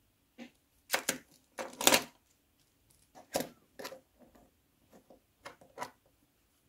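Plastic Lego Technic parts of a gripper model clicking and knocking as it is handled and set on a wooden tabletop: a series of separate sharp clicks, the loudest cluster about two seconds in.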